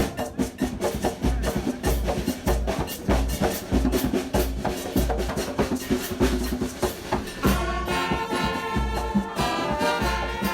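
Background music with a steady percussive beat and bass; sustained melodic notes, horn-like, come in about seven and a half seconds in.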